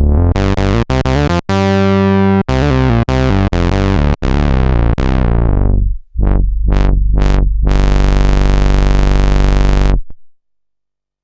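Roland SH-101 monophonic analog synthesizer, recorded dry, playing a line of short, deep, buzzy notes whose brightness closes down. A few short plucked notes follow, then one long bright held note that cuts off about ten seconds in.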